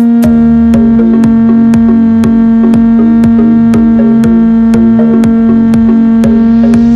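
Electronic background music: a steady held note over a drum-machine beat of about two hits a second, with a rising whoosh building near the end.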